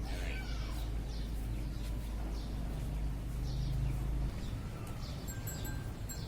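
Small birds chirping repeatedly in short falling calls, over a steady low rumble that cuts off suddenly about two-thirds of the way through.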